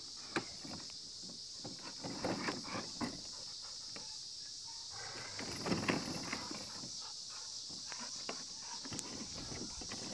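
A dog tugging a plastic children's wagon across grass by its handle: irregular knocks, rattles and scuffling from the wagon and handle, busiest about two and six seconds in.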